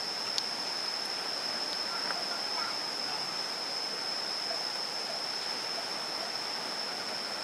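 Shallow river water flowing steadily, under a continuous high-pitched insect drone from the surrounding tropical forest.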